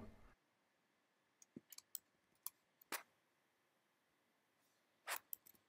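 Near silence broken by a few faint, short clicks of a computer mouse and keyboard: a cluster between one and two seconds in, single clicks near two and a half and three seconds, and one more about five seconds in.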